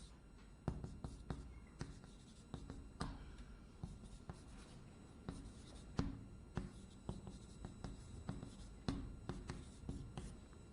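Writing on a board: a faint, irregular run of sharp taps and short strokes.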